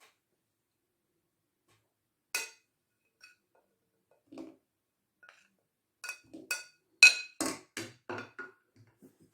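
Kitchenware clinking with a ringing tone: a single clink about two seconds in, a soft knock a couple of seconds later, then a quick run of about eight clinks near the end, roughly three a second.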